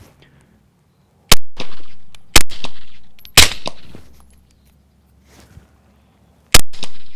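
Four suppressed shots from a 9mm Glock 17 fitted with a SilencerCo Omega 9K suppressor: three about a second apart, then a fourth after a pause of about three seconds. Each shot is a sharp crack with a short echo trailing off.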